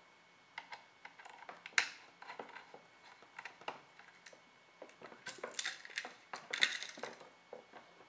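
Small screwdriver tightening a brass terminal screw on a USB wall outlet while the outlet and its wires are handled: scattered metallic clicks and scrapes, with a sharp click about two seconds in and bursts of scraping around five and a half and seven seconds.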